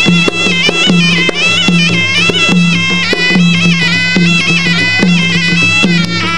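Traditional Kun Khmer ringside music: a high, nasal reed pipe (sralai) playing a continuous winding melody over a steady beat of hand drums.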